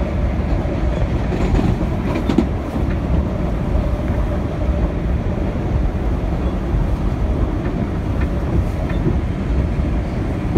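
Steady low rumble of a moving PATH train heard from inside the car, its wheels running on the rails, with a few faint clicks about two seconds in.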